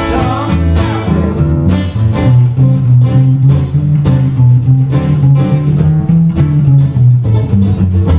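Steel-string acoustic guitar played solo in a driving rockabilly-blues rhythm: a pulsing bass-string line under picked chords and lead notes.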